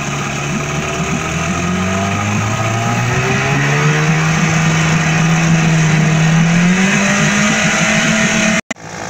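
Johnson 7.5 hp two-stroke twin outboard motor running in a test barrel of water, its carburetor freshly cleaned; it revs up steadily as the throttle is opened, then drops out abruptly for a moment near the end.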